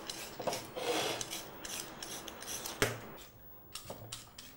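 Knife cutting vegetables on a cutting board: a steady run of short cutting strokes, about three a second, with one sharper knock of the blade on the board near three seconds in, then slower, fainter strokes.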